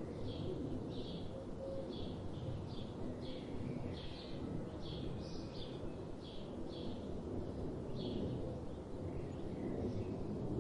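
Small songbird chirping: a short, high chirp repeated about every three-quarters of a second, over a steady low rumble of outdoor background noise.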